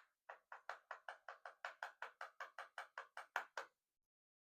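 Rapid, evenly spaced light metallic taps, about five a second and about seventeen in all, each with a short ring, from a lock cylinder being tapped while it is disassembled. They stop suddenly near the end.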